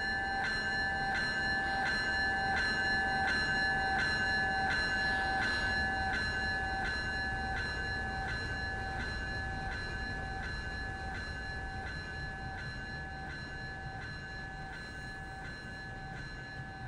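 Freight train rumbling past while a railroad grade-crossing bell rings steadily, about two strikes a second. The train's rumble is loudest about three seconds in and then slowly fades as it moves away.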